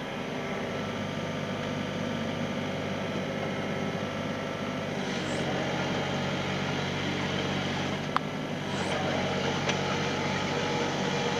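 Kobelco SK28SR-6 mini excavator's diesel engine running steadily, with one sharp click about eight seconds in.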